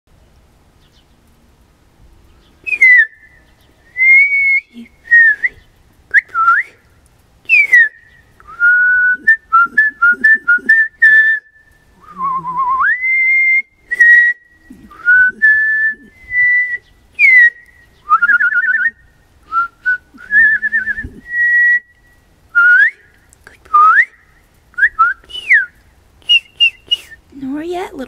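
A woman whistling bird-like calls to the birds: a series of short clear whistles, slurred up- and down-glides and quick trills, starting about three seconds in.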